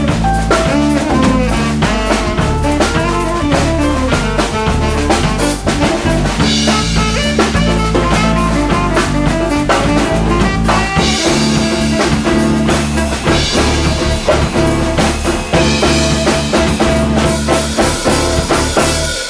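Small jazz swing band playing an instrumental passage without vocals, with the drum kit to the fore. The playing breaks off at the very end, leaving only a decaying ring.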